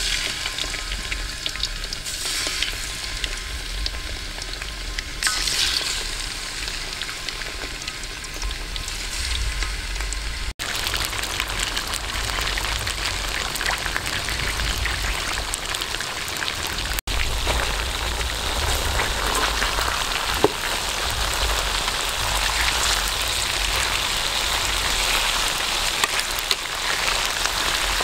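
Stingray pieces deep-frying in hot oil in a metal pan: a steady sizzle that gets denser and a little louder about ten seconds in. It breaks off for an instant twice.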